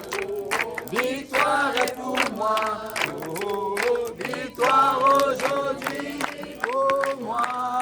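A group of voices singing a French gospel chorus together, held notes rising and falling, over a rhythm of sharp short strikes.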